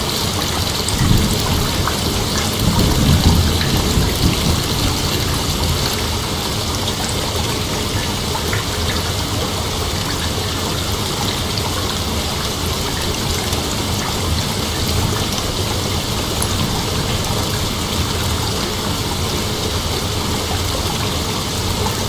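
Steady chorus of night insects, an unbroken high droning hiss, with a brief low rumble about one and three seconds in.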